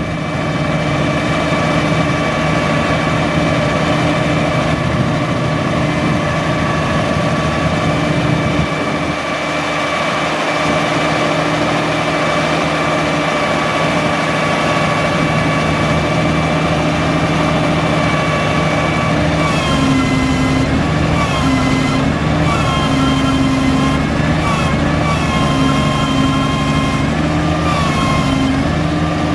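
Diesel engine of a 2002 Mack RD688S roll-off truck running steadily while the hydraulic tarp arm is worked. About two-thirds of the way in, its note starts stepping up and dropping back again and again as the control levers are worked.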